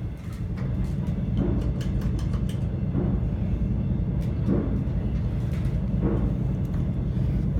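Homestead Wind 2 ceiling fan running on high: a steady low motor hum and blade whoosh that builds over the first second or two as the fan comes up to speed, then holds level with a soft pulse about every second and a half.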